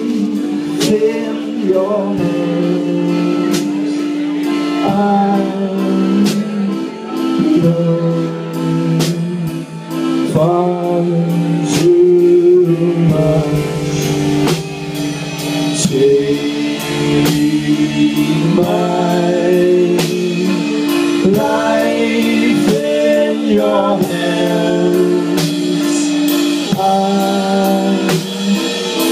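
Live indie rock band playing a song: electric guitars and drum kit with a sung vocal line over them.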